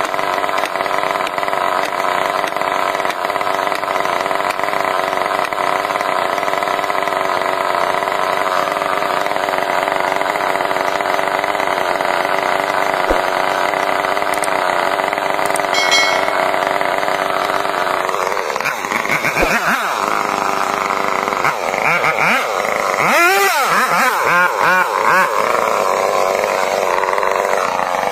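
Chainsaw engine running at a steady speed, then from about two-thirds of the way through revved up and down again and again.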